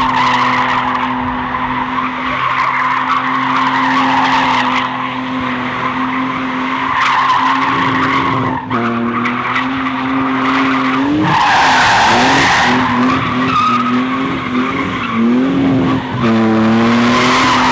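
BMW E36 drifting: its engine is held high in the revs while the spinning tyres squeal without a break. Past the middle the revs drop and bounce up and down for a few seconds, then hold steady again near the end.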